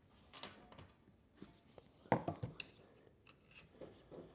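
Faint clinks and knocks of hands and tools working around a Yamaha Big Bear 400 ATV engine. A light metallic clink with a brief ring comes about half a second in, then two sharper knocks around two seconds in, then a few small ticks.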